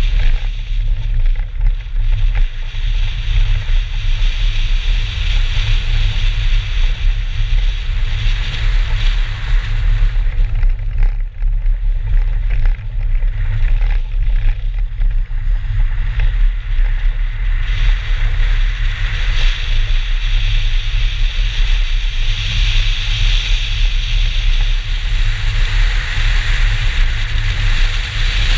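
BMW 320 rally car driven at speed on a snowy road, heard through a camera mounted outside the car: heavy wind rumble on the microphone over the engine, with a hiss of tyres on snow and gravel that dips in the middle and grows stronger again in the second half.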